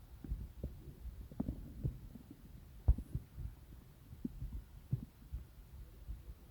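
Stomach rumbling: irregular low gurgles and soft pops of digestion, with a sharper pop about three seconds in.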